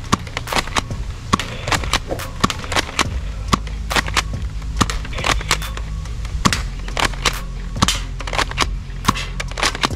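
Toy blaster firing shot after shot: sharp cracks come several a second at uneven spacing, over a steady low hum.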